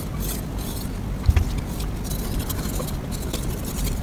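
Steel knife and whetstone being handled on a wooden stone holder: light scrapes and clinks, with one short knock about a second in, over a steady low rumble.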